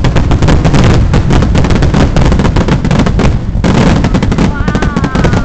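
Aerial fireworks shells bursting in a rapid, unbroken barrage, dense bangs and crackling following one another many times a second.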